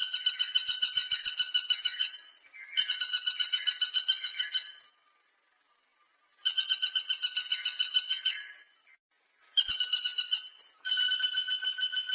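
Woodpecker calling: a fast, high trill of about eight notes a second, given in phrases of one to two and a half seconds, repeated five times with short pauses between. These are calls, not drumming on wood.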